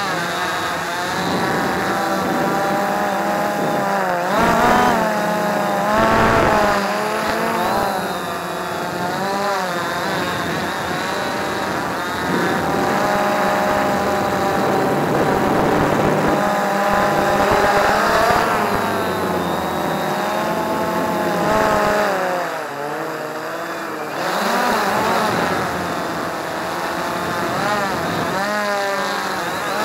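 Quantum Nova quadcopter's four brushless motors and propellers whining in flight, heard from a camera mounted on the drone. The pitch rises and falls over and over as the throttle changes.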